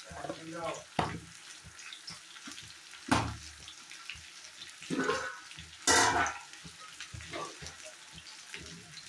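Arbi (taro) pieces frying in oil in a kadhai, a light sizzle, with a few sharp knocks, the loudest about three and six seconds in.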